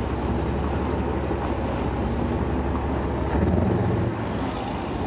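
Lxd2 narrow-gauge diesel locomotive idling steadily. About three and a half seconds in its engine note briefly swells and then settles back, as a puff of exhaust rises from its roof.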